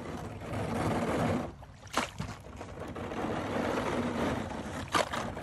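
Kayak paddle splashing and churning shallow water as a small plastic kayak pushes off a muddy bank, with two sharp knocks about two and five seconds in.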